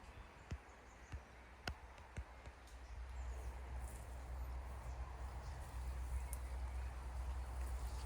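Outdoor background: four sharp taps or clicks in the first couple of seconds, then a steady low rumble, like wind on the microphone, over an even haze.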